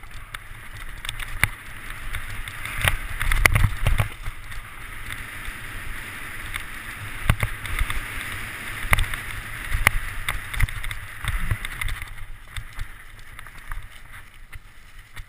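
Downhill mountain bike riding fast over a rocky, rooty dirt trail, heard from a helmet camera: wind buffeting the microphone and a rushing of tyres on dirt, with frequent knocks and rattles as the bike hits rocks and roots, heaviest about three to four seconds in. The rushing eases after about twelve seconds.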